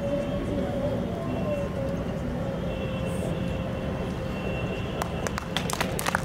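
Steady background rumble of a hall with a faint steady hum, then scattered clapping that breaks out about five seconds in as a sapling is presented.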